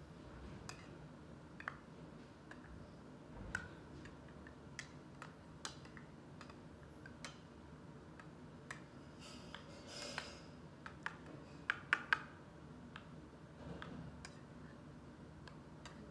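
A spoon clinking and scraping against a small stainless steel bowl while mashing mango pieces, in irregular light taps, with a short scrape and then a quick run of three louder clinks late on.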